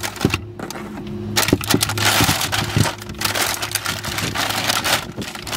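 Jumper cables being handled: the insulated cables rustling and rubbing, with sharp clicks of the metal clamps, over a steady low hum.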